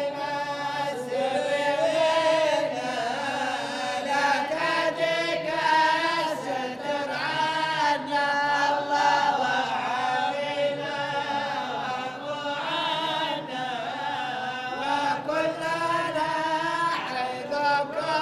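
A group of men chanting an Arabic devotional qasida together, with long, wavering melodic lines held on drawn-out vowels and several voices overlapping.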